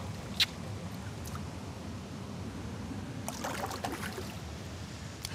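Steady rush of river water, with one sharp click about half a second in. Splashing about three to four seconds in, as a salmon is let go from the hands back into the current.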